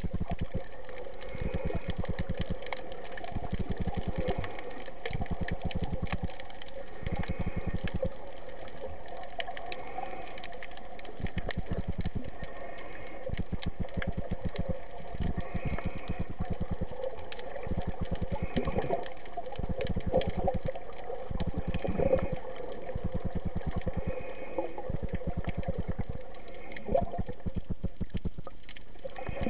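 Muffled underwater sound picked up by a camera in a waterproof housing: a steady, dense crackle of water noise, with a soft swell recurring every few seconds.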